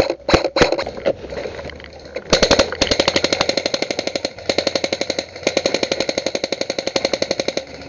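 Airsoft electric rifle firing: a few single shots near the start, then from about two seconds in long rapid full-auto bursts of roughly a dozen shots a second.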